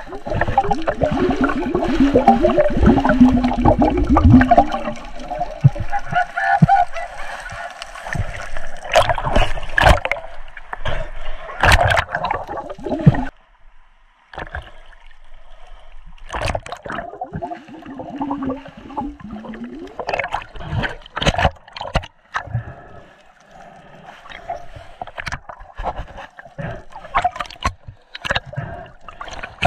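Seawater sloshing, gurgling and splashing against an action camera's waterproof housing as it bobs between underwater and the surface, with sharp clicks and bubbling. Louder in the first half, it breaks off abruptly about halfway and resumes quieter.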